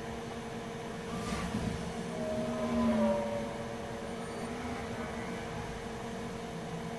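Steady electrical hum and fan hiss of microsoldering bench equipment, with a brief faint wavering tone about two to three seconds in.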